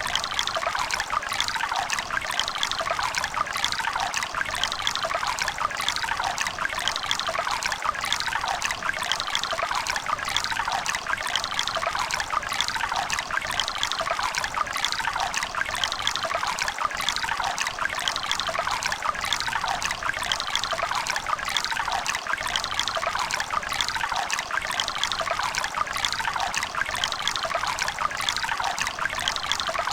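River water running over stones in a steady, splashy babble, bright and close, with little deep rumble.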